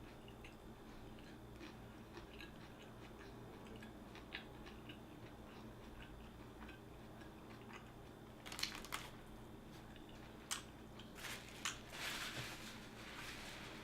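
Mouth sounds of biting and chewing an Italian-style sub sandwich with raw white onion: faint small chews at first, then louder, crunchy bites and chewing from about eight seconds in.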